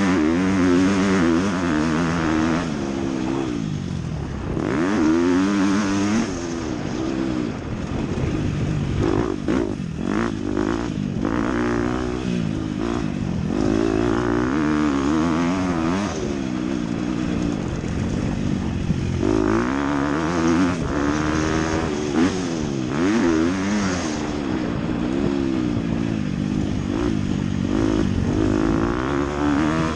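Motocross dirt bike engine revving hard and backing off again and again as it is ridden around the track, its pitch climbing and dropping with the throttle.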